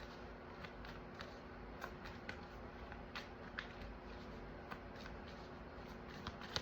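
Tarot cards being shuffled by hand: faint, irregular soft card clicks over a low steady hum.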